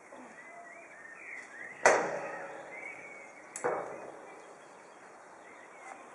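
Two sharp knocks, the first the louder, about two seconds apart, each dying away quickly.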